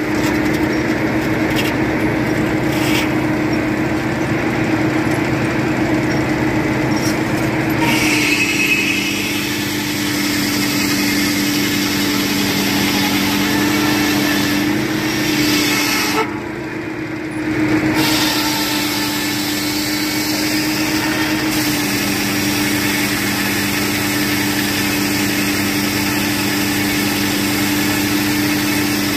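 Circular sawmill running steadily while its blade saws a thick board, the engine holding one steady pitch under the cutting noise. Just past halfway the cutting noise drops out for about two seconds, then returns.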